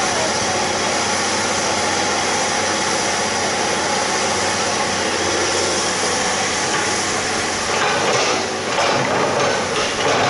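Hydraulic excavator's diesel engine running steadily under a loud, even hiss, with rattling knocks in the last couple of seconds.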